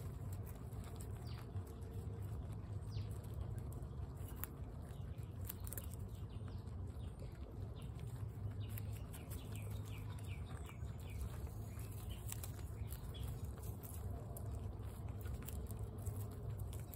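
Guinea pigs crunching hard pellets, a steady patter of small crunches over a low background hum. About halfway through, a short run of high chirps comes in.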